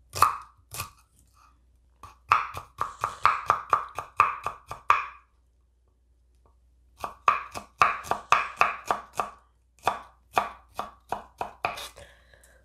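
Kitchen knife dicing purple shallots on a cutting board: two fast runs of chopping strokes, about five a second, with a pause between and a few slower single cuts near the end.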